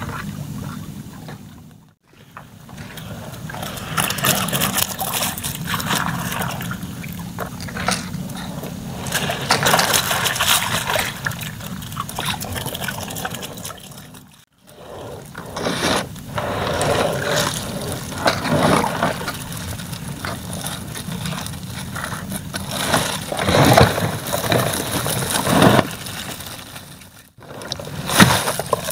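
Water dripping and splashing off a fine-mesh net trap as it is hauled up out of the water by hand, with the wet net rustling. Three brief silent gaps break the sound.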